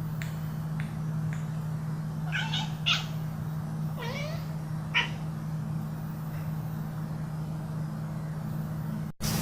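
A domestic cat giving four short meows, two close together about two seconds in and two more around four and five seconds in, over a steady low hum.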